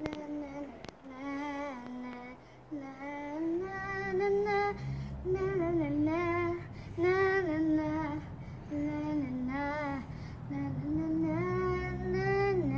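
A young girl singing a made-up, wandering tune in short phrases of about a second each, the pitch rising and falling, with brief breaks between phrases.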